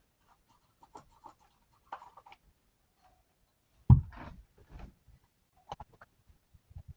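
Small wooden drawer parts being handled on a bench: scattered light clicks and scrapes, with one sharp wooden knock about four seconds in followed by a brief rub.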